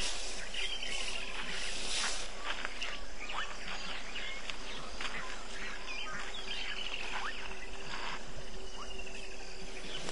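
Dusk bush chorus of insects, with a bird giving a descending trilled call three times. Over it come scattered rustles, scrapes and knocks as an elephant brushes the camera with its trunk and tusk.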